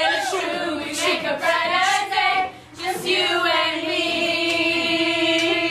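A group of teenage girls singing a slow melody with long held notes, with a brief breath break about two and a half seconds in.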